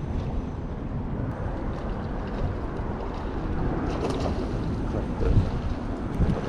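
Wind rumbling on the microphone of a small fishing boat on the water, with a few faint ticks and a short knock about five seconds in.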